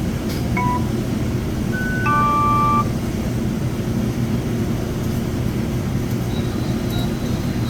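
Electronic beeps from a checkout payment terminal during a card payment: a short beep, then a higher beep, then a longer beep of several pitches at once, all within the first three seconds. Under them runs a steady low hum.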